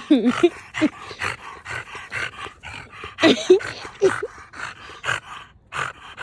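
American Bully puppy panting hard in quick, even breaths, with short wavering growly vocal sounds at the start and again about three to four seconds in while she plays with her toy.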